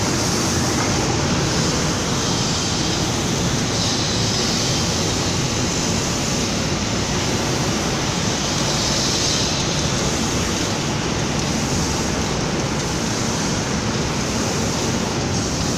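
Steady rushing noise of an automatic paint spraying and drying line running: machinery and moving air, even and unbroken.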